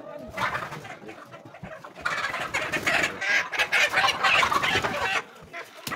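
Chickens clucking, then, about two seconds in, a loud burst of squawking and hard wing-flapping from a chicken that lasts about three seconds.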